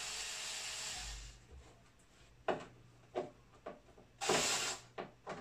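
Hand Phillips screwdriver backing the screws out of the Crunch GPX350 subwoofer's mounting ring in its MDF enclosure: a run of short creaks and scrapes, with the longest and loudest a little past the middle. A steady hiss fades out in the first second.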